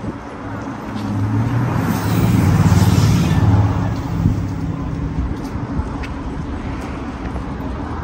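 A car driving past, its engine and tyre noise swelling to a peak about three seconds in and then fading away.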